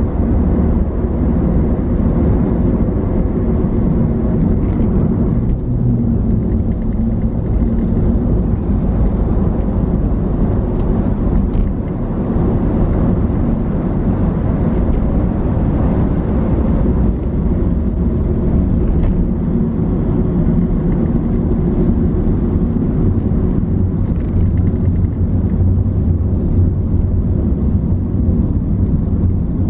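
Steady low rumble of a car's engine and road noise, moving slowly in dense traffic.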